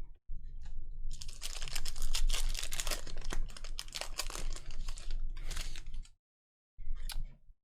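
Trading card pack wrapper crinkling and tearing as a pack is ripped open and the cards are handled. A dense crackling run lasts about five seconds, then stops briefly, and a short crinkle follows near the end.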